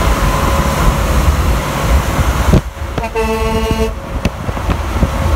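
Steady highway road and wind noise, then about three seconds in a short blast of under a second from a Kenworth W900's dual Grover 2001 air horns, a steady chord-like horn tone that cuts off cleanly.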